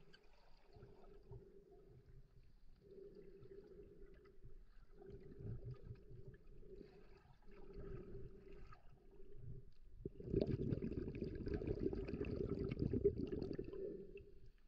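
Muffled underwater sound heard through a submerged action camera's housing: a low hum that comes and goes about every second and a half to two seconds. About ten seconds in, a louder rush of moving water sets in for about four seconds, then fades.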